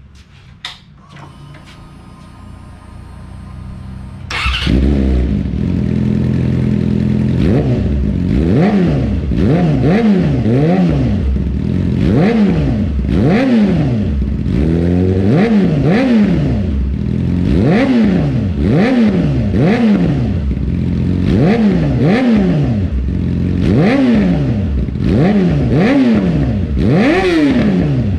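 2018 Yamaha YZF-R6 inline-four engine, breathing through an Akrapovic slip-on exhaust with its silencer insert removed. The engine comes in loudly about four seconds in and is then blipped over and over, the revs rising and falling about once every second and a half.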